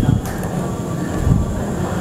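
Handling noise from a nylon jacket as its wearer works the front zipper: fabric rubbing and rustling close against a clip-on microphone, heard as a steady, rough low rumble.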